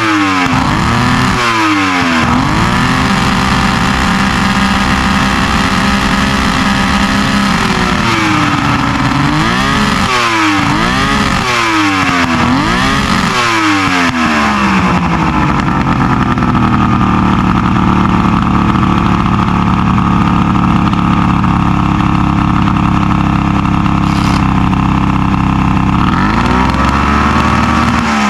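Three-cylinder outboard motor running after a no-start was cured with a new ignition coil and trigger, its throttle blipped again and again: the pitch rises and falls twice near the start, four quick times in the middle, and once more near the end, with steady running between, settling to a lower idle in the second half.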